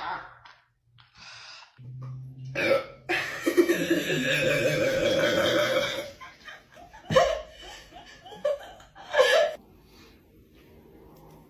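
A person burping after drinking carbonated Sprite: a short burp, then one long drawn-out burp lasting about three seconds, then two more short, sharp burps.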